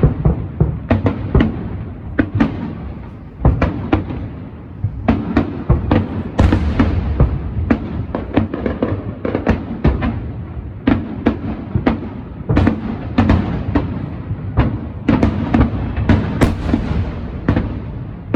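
Aerial fireworks going off in a dense, steady barrage: many sharp bangs and booms, one to three a second, over a continuous low rumble of overlapping bursts and echoes.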